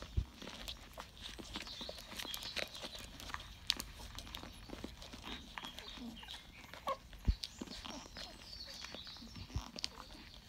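18-day-old Rottweiler puppies suckling at their mother: a busy run of wet smacking and clicking with a few brief squeaks and grunts, and a few soft thumps.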